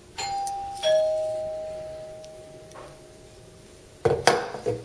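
Doorbell chime giving a two-note ding-dong, the higher note then the lower, each ringing and fading out over a couple of seconds. Near the end come a few sharp knocks.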